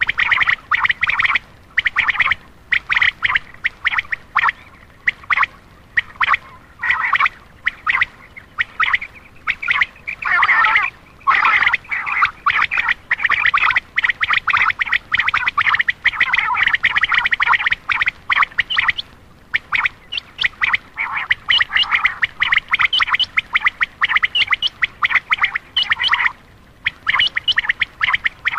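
Common quail calling over and over in quick runs of short notes, several a second, broken by brief pauses. It is a playback lure call used by hunters to draw in male quail.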